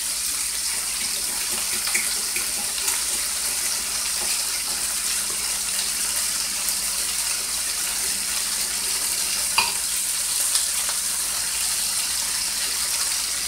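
Steady sizzling hiss from boneless beef short ribs, onions and green peppers frying in a skillet on the stove, with a couple of light clicks.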